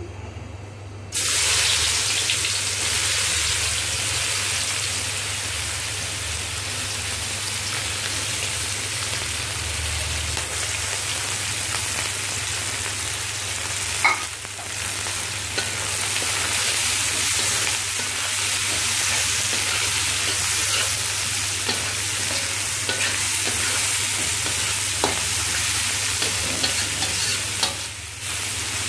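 Sliced onions and green chillies hitting hot oil in a metal wok: a sudden loud sizzle starts about a second in, then the vegetables keep frying with a steady sizzle as they are stirred. A few sharp clicks sound over the sizzle.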